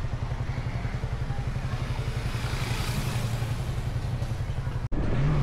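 Bajaj Dominar 400's single-cylinder engine running steadily under way, a rapid even pulse of firing strokes. Near the end the sound cuts off abruptly.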